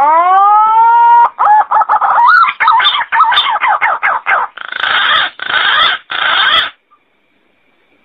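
Green pigeon (punai) song: a clear whistle rising over the first second, then a fast run of wavering, warbling notes, then three harsher, buzzy phrases, stopping abruptly about two-thirds of the way through.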